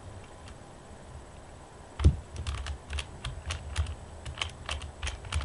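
QJ Pyraminx, a ball-bearing plastic twisty puzzle, being turned by hand: a quick run of plastic clicks and clacks, several a second, starting with one louder knock about two seconds in.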